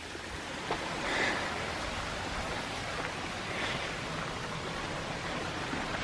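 Steady rush of flowing water from the creek and its waterfall.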